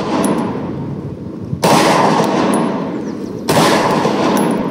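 Semi-automatic pistol firing slow single shots: two sharp reports about two seconds apart, each trailing off in a long echo.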